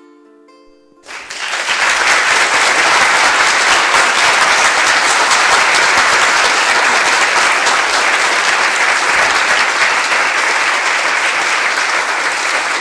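The last plucked ukulele chord dies away, then about a second in an audience breaks into loud, steady applause that keeps up to the end.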